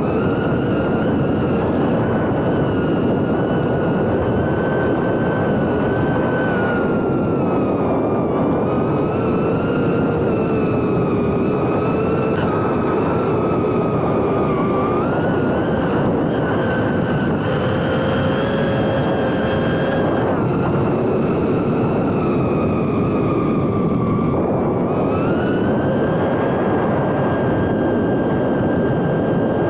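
FPV racing drone's electric motors and propellers whining under a dense rush of prop noise, the pitch drifting up and down with the throttle and stepping up about 25 seconds in.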